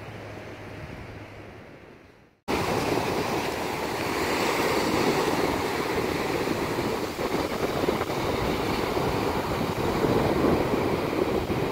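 Ocean surf breaking and washing up the beach, with some wind on the microphone. The sound fades out about two and a half seconds in, then cuts back in louder and closer.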